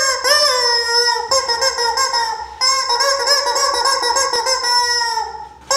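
Rubber screaming chicken toy squeezed, giving long, drawn-out squawks, three in a row. The first and last sag in pitch as the air runs out, the last lasting nearly three seconds, and a fresh squawk starts at the very end.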